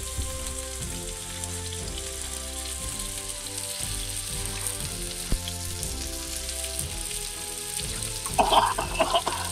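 Quartered potatoes and squash frying in a pan, a steady hiss of sizzling. A brief louder sound comes near the end.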